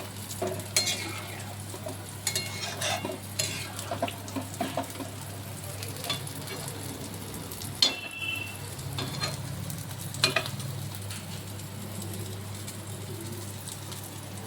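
A metal spatula stirring and scraping food frying in a pan, over steady sizzling. There are irregular clatters, mostly in the first five seconds, and a ringing metal clink about eight seconds in, with a steady low hum underneath.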